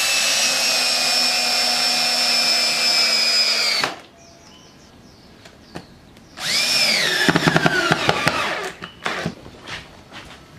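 Power drill/driver driving screws to fasten a dowel-making jig to the bench. It runs at a steady high whine for about four seconds and stops. After a pause it runs again, drops in pitch under load as the screw bites, and gives a burst of rapid clicking as the screw seats. A few light knocks follow.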